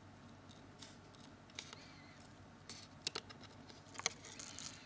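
Faint, scattered clicks and scrapes of a small hand tool working on a smartphone's front housing, as a stuck touch key is prised free of its adhesive.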